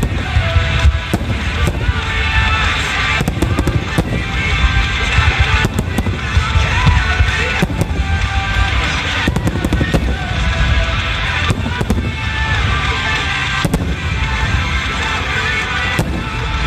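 Aerial fireworks shells bursting in quick, irregular succession over loud music played with the display.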